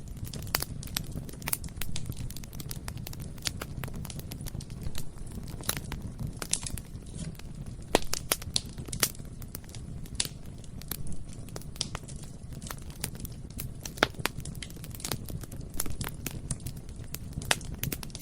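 Bonfire burning: a steady low rumble of flames under constant crackling and snapping, with a few louder pops, the sharpest about eight and fourteen seconds in.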